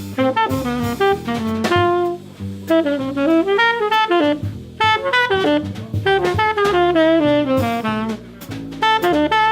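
Jazz trio playing: a tenor saxophone plays a line of quick, changing notes over double bass and a drum kit with cymbals.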